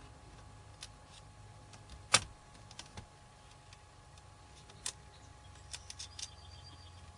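Scattered light clicks and taps of small-parts handling on a laptop: a screwdriver and tiny screws against the plastic case. One sharper knock comes about two seconds in, and a quick cluster of clicks follows near six seconds.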